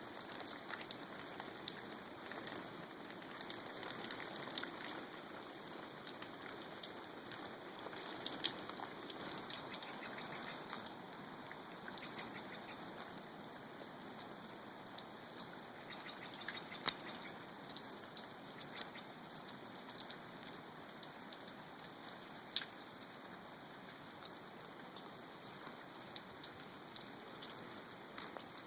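Light rain falling steadily, a continuous hiss with scattered sharp drops ticking through it.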